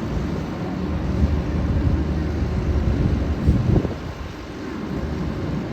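Jet aircraft engines rumbling steadily overhead, with a brief thump partway through.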